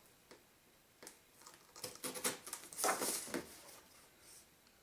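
Cardboard toy box being opened and handled: short bursts of scraping and rustling, loudest around the middle.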